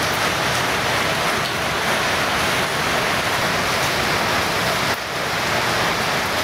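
Steady, loud rushing noise with no distinct strokes, dipping briefly about five seconds in.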